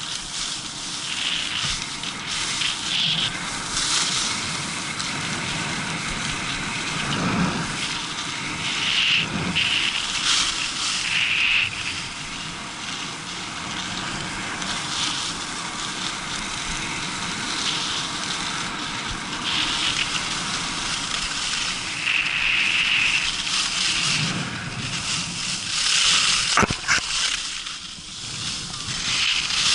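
Skis scraping and carving over hard-packed, tracked piste snow: a continuous hissing scrape that swells and fades with each turn. Near the end there is one sharp click.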